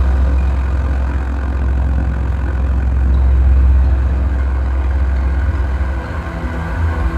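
A heavy, sustained drone from a live drone-metal/noise set: a deep bass rumble with layered steady tones above it. It swells about halfway through and thins slightly near the end.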